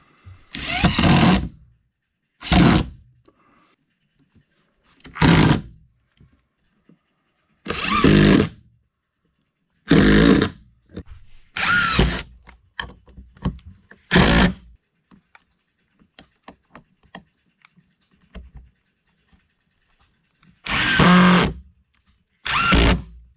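Ridgid cordless drill/driver driving wood screws into pine blocks, in about nine short bursts of the motor with pauses between them.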